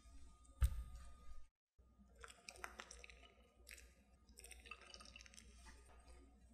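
A ceramic baking dish set down with a single thump on a cloth-covered table, then soft, irregular crackling and light ticks as shredded mozzarella is sprinkled by hand over the baked potato gratin.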